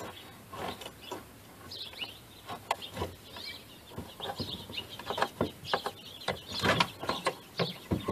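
Irregular clicks, knocks and scrapes of metal and plastic as a fuel pump and sending unit assembly is worked by hand down into a car's fuel tank through the access hole.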